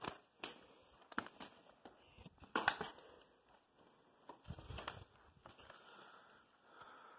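Footsteps crunching over loose rock and fallen brick rubble in an irregular series, the loudest crunch about two and a half seconds in and a heavier thud near the middle.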